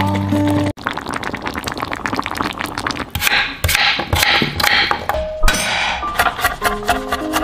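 Kitchen knife chopping a potato on a wooden cutting board: a fast run of sharp knocks of the blade against the board. Music stops shortly after the start and comes back in near the end.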